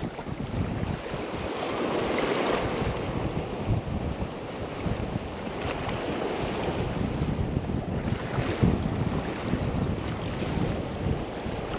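Ocean surf washing over shoreline rocks, swelling a few times, with wind buffeting the microphone.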